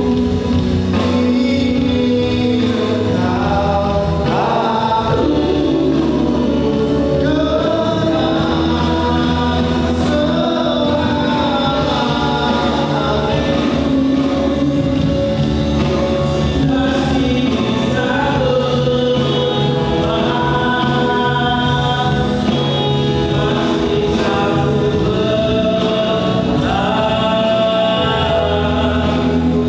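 Men singing a song live into microphones, with music accompaniment that carries steady low bass notes.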